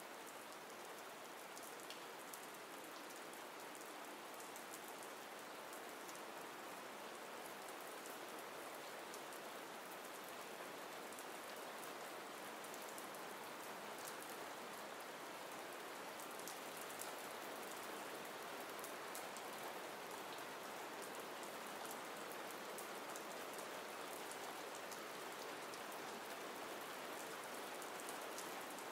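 Steady, soft rain with the light ticking of individual drops, a rain-sounds background track.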